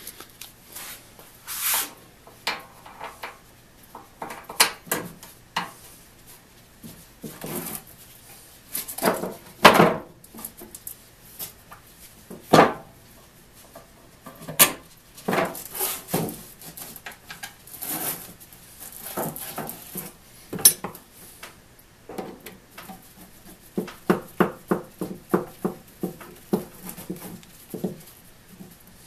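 Irregular clinks, knocks and short scrapes of metal tools and parts handled on a wooden workbench, with a run of quick light taps near the end.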